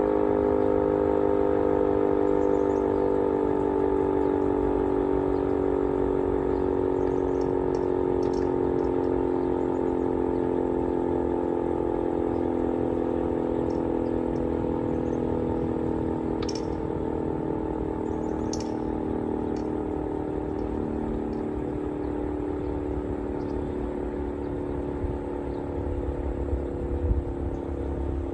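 Sentry 20V2T dual-tone electromechanical tornado siren sounding a chord of two tones that slowly fall in pitch and loudness as it winds down. Low rumbling comes in near the end.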